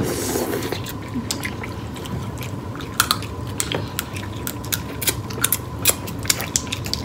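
People eating a seafood boil of crab legs and corn on the cob: chewing and biting with many short, sharp, wet clicks and smacks throughout.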